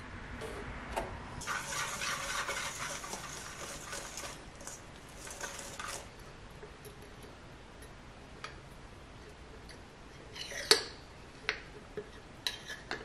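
A wire whisk beating flour, milk and egg in a stainless steel bowl: a fast scraping rattle for about four and a half seconds. Near the end come a few sharp clinks, the loudest about three-quarters of the way through.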